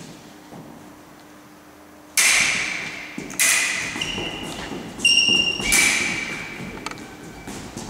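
Foil blades striking each other with a metallic ring, together with feet stamping and thumping on a wooden sports-hall floor: several sharp impacts from about two seconds in, one with a clear ringing tone a little past the middle, each echoing in the hall.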